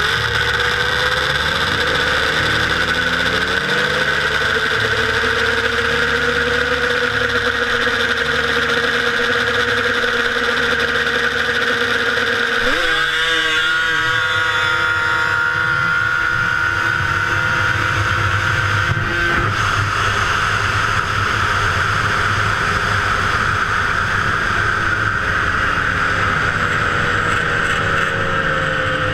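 Yamaha snowmobile engine running steadily at low revs, then about a third of the way in revving up sharply as the sled launches and running hard at high revs down the ice strip.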